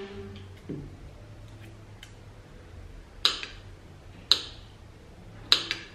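A knife and fork clinking against a ceramic plate while cutting banana into small pieces: a soft knock under a second in, then three sharp, ringing clinks about a second apart near the end.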